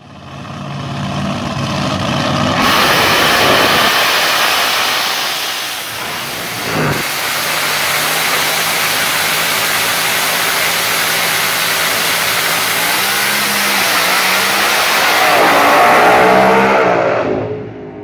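Dragster's 4.90-inch bore-space billet race engine running very loud at the drag strip. It starts at a lower level, grows much louder about two and a half seconds in, and runs on steadily. Its pitch rises near the end before the sound drops off suddenly.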